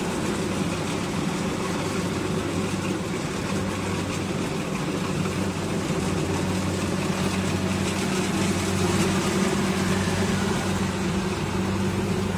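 Kubota rice combine harvester running steadily as it cuts rice, a continuous low engine drone that swells slightly in the second half.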